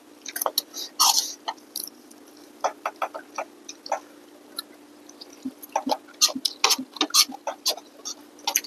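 Close-up eating sounds: rice noodle soup being slurped and chewed, in clusters of short wet mouth smacks and clicks, with a longer slurp about a second in. A faint steady hum runs underneath.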